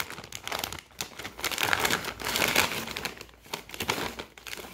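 Foil-lined plastic snack bag crinkling and rustling in irregular flurries as it is handled and opened.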